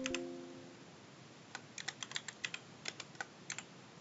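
Computer keyboard keystrokes: a quick run of typing about a second and a half in, lasting around two seconds. A short tone of several steady pitches sounds right at the start and fades within about half a second.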